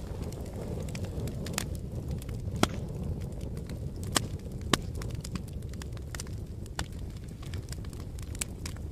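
Wood fire crackling, a steady low rumble of flames dotted with many sharp pops from the burning logs, a few of them louder in the middle.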